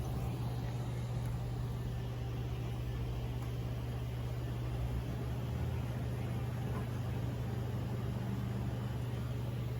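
A steady low mechanical hum that holds an even level throughout.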